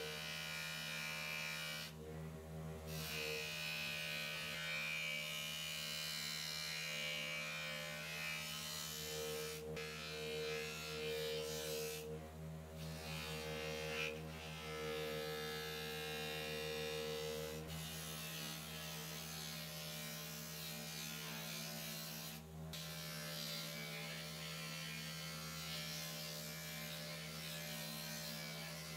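Electric bench polishing motor running with a steady hum as its cloth buffing wheel spins. A plastic headlight lens coated in polishing compound is held against the wheel, adding a changing higher-pitched rubbing whine and hiss.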